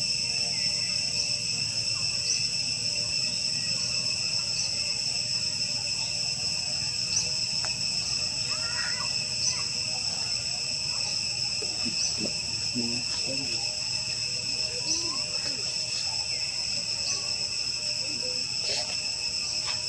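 Steady, high-pitched drone of insects in several unbroken tones, with a faint regular tick about once a second. A few faint short calls come about halfway through.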